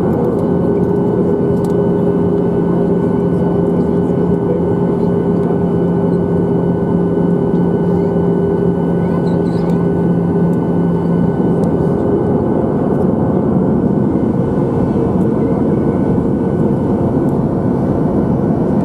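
Steady aircraft noise, a loud even rush with a low steady hum that fades out about eleven seconds in.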